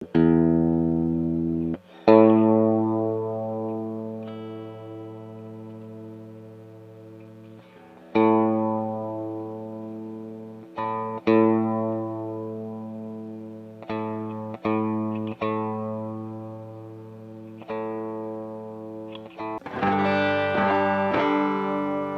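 Electric guitar played for a tone check: single chords struck and left to ring out and fade, several seconds apart, then a quicker run of notes near the end.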